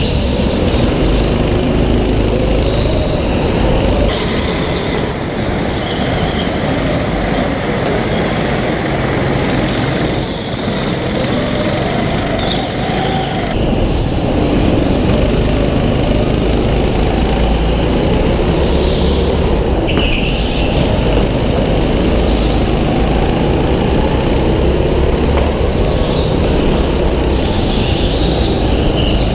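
Onboard sound of indoor karts racing: the kart engine rising and falling in pitch with the throttle, and tyres squealing briefly on the smooth indoor floor through the corners. The sound changes character about halfway, where the footage switches to another kart's camera.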